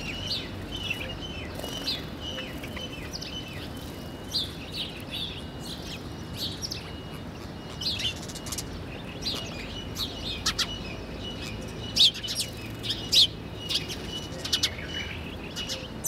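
House sparrows chirping: many short, sharp chirps, busier and louder in the second half, over a steady thin high note in the first half.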